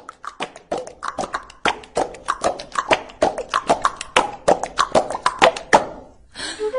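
Beatboxing in a music track: a fast, uneven run of sharp clicks and pops from the mouth. It stops about a second before the end.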